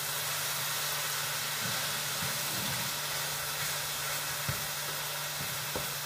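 Minced meat sizzling steadily in a frying pan as it is stirred with a wooden spatula, with a few light knocks of the spatula against the pan.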